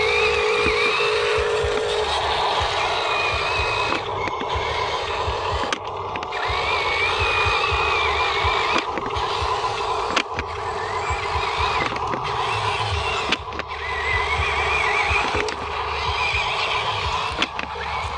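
A Huina RC dump truck's small electric drive motor and gearbox whining, the pitch wavering up and down as the throttle changes. A rapid pulsing tone sounds for the first two seconds.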